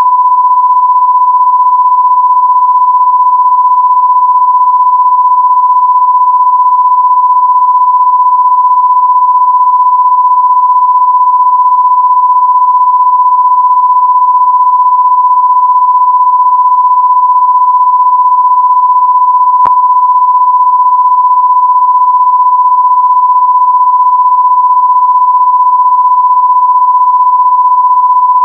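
A loud, steady electronic sine-wave test tone of about 1 kHz, held without a break, with a single faint click about two-thirds of the way through.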